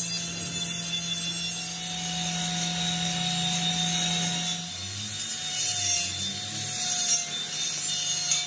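Steady machine hum in a metalworking shop, with metal scraping and rubbing against metal, stronger and rougher from about five seconds in.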